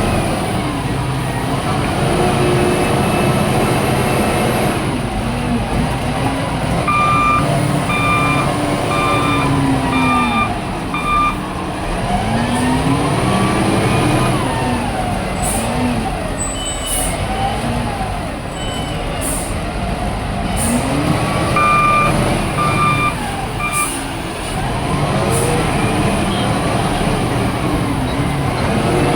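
Excavator's diesel engine working under hydraulic load, its pitch rising and falling with each dig-and-swing cycle while loading a tipper truck. A reversing alarm beeps in a short run about seven seconds in and again after twenty-two seconds, with short sharp hisses in between.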